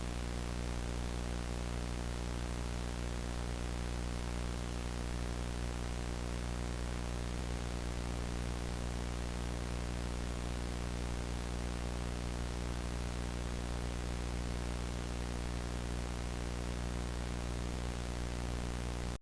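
Steady static hiss over a low hum made of many fixed tones, unchanging in level, cutting off abruptly into dead silence at the end.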